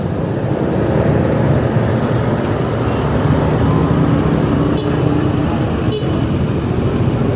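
Tour bus's diesel engine running as the bus pulls in: a steady low drone.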